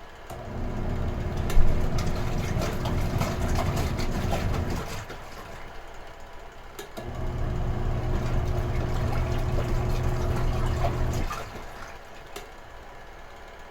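Retro-type washing machine washing: its motor runs in spells of about four seconds with pauses of about two seconds between them, churning water in the tub.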